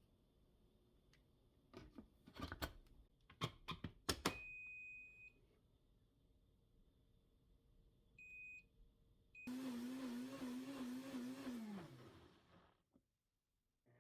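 Clicks and electronic beeps from an appliance's control panel, then a high-speed electric motor runs for about three seconds and spins down, its pitch falling as it stops.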